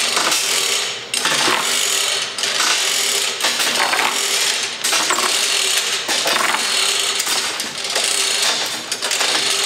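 Manual chain hoist worked hand over hand on its hand chain, lifting a heavy engine block: a steady rattle of chain links and ratchet clicking, coming in pulls about once a second.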